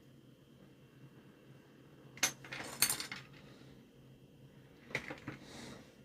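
Small metal tools clinking and tapping on a workbench: a cluster of light clinks about two seconds in and a few more near the end.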